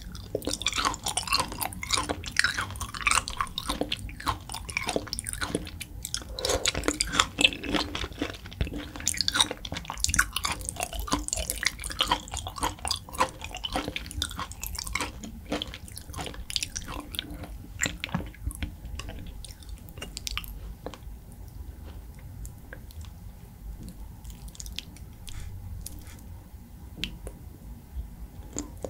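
A person chewing raw beef and sea urchin close to the microphone: a continuous run of soft mouth clicks and smacks. The chewing is busiest for the first two-thirds and thins out near the end.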